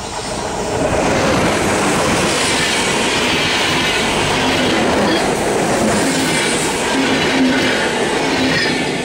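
Two coupled TerraSur UTS electric passenger trainsets passing close by at speed: a loud, steady rush of steel wheels on rail with clickety-clack over the rail joints. It swells up within the first second.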